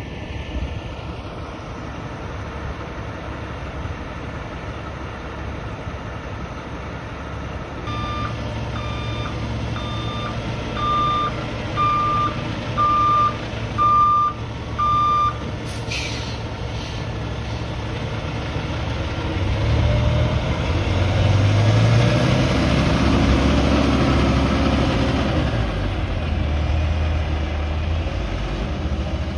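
Semi truck's diesel engine idling while a backup-style beeper sounds eight times, about once a second. A sharp air-brake hiss follows, then the engine revs up, climbing in pitch, as the rig pulls away.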